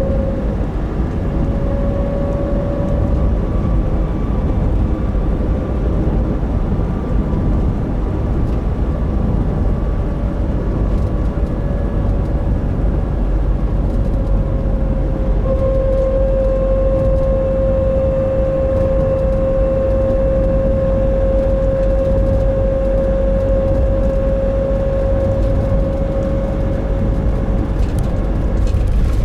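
Nissan NV350 Caravan with its YD25DDTi diesel running down the road: low engine and road rumble under a steady humming 'kō~n' drone, the sound that comes at steady light throttle around 1000–1500 rpm and that the owner suspects may be coming from the differential. The drone is faint at first and grows clearly stronger about halfway through, then holds steady.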